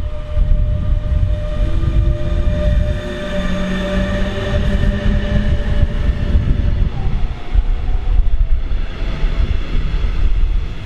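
A DB Class 146 electric locomotive passing close, hauling double-deck coaches. A steady electric whine of several tones sits over a heavy rumble of wheels on the rails.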